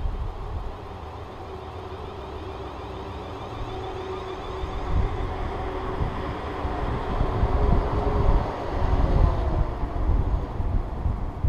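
Class 444 Desiro electric multiple unit approaching at speed and passing close by: a low rumble of wheels on rail with a steady electric whine, growing louder to a peak about eight to nine seconds in.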